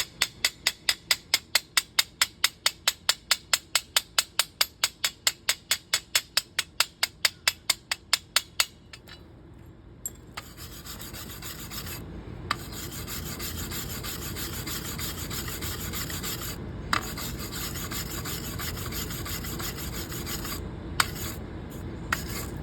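Electric welding arc on a steel door hinge: for the first nine seconds or so it pops in a fast regular series, about four or five a second, then after a brief break it settles into a steady hissing crackle, with a few sharp pops, to the end.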